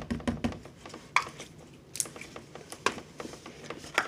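Slime being squeezed and pressed together by hand, making a run of short sticky clicks and pops, with a few sharper ones about a second apart.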